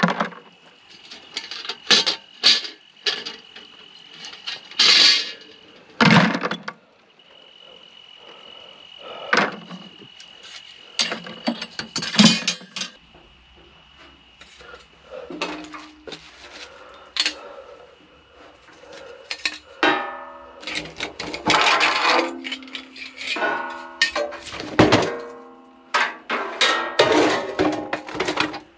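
Scrap metal being handled, sorted and dropped: a string of irregular clanks, clinks and knocks, thickest in the last third. A steady high-pitched tone runs behind them through the first half.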